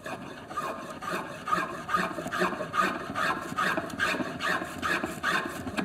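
A spokeshave set fine, taking fast repeated strokes along the edge of a wooden cutting board. Each stroke is a short scraping swish as a thin shaving curls off, at about two and a half strokes a second.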